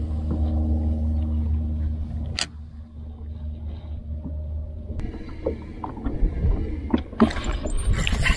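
Steady low hum of a boat's motor that stops with a sharp click about two and a half seconds in. Scattered small clicks and knocks follow, with two sharper ones near the end.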